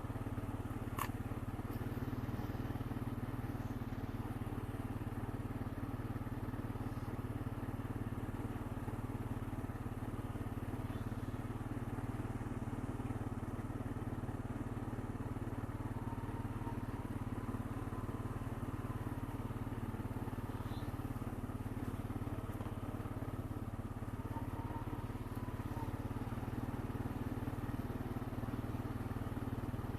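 Honda Rancher 420 ATV's single-cylinder engine running steadily at an even speed, a low hum with no change in loudness.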